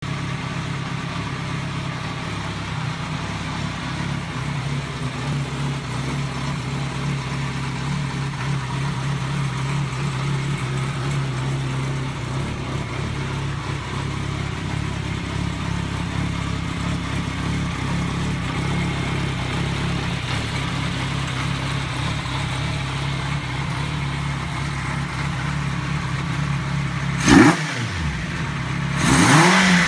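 1982 Kawasaki Z650's air-cooled inline-four engine idling steadily, then blipped twice near the end, the revs rising and falling quickly.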